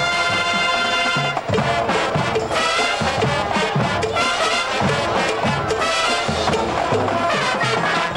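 Marching band playing brass and drums: a held brass chord for about the first second and a half, then a busier passage of moving brass lines over drum hits.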